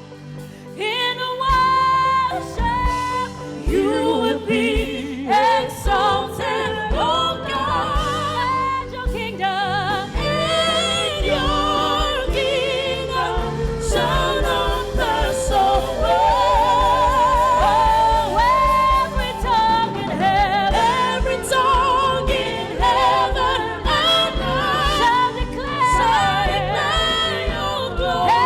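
Gospel worship music: singers and a choir sing a slow praise song with vibrato over a band with a steady beat.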